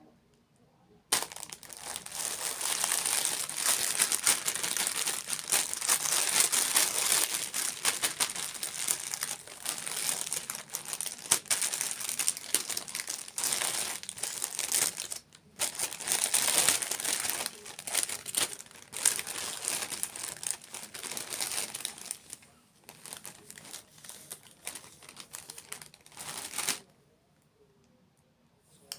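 Food packaging crinkling as it is handled and opened. It is a dense, crackling rustle that starts about a second in, pauses briefly midway and stops near the end.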